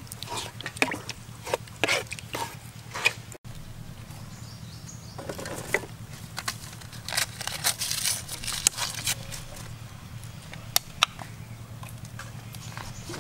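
A thin stream of liquid pouring into a metal pot of milky liquid, with scattered clicks and knocks of a metal ladle against the pot. There is a brief drop-out about three and a half seconds in.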